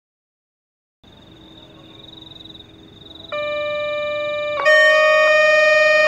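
Electronic railway level-crossing alarms sounding together: a high warbling tone, joined a couple of seconds later by a louder electronic siren tone that jumps between pitches every second or so. The level rises in steps over the first few seconds. The alarms warn that the crossing is closing for an approaching train.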